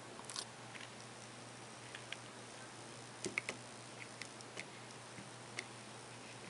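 Irregular light clicks of plastic keys being pressed on a 4x4 matrix keypad, a few at a time with gaps between, over a steady low hum.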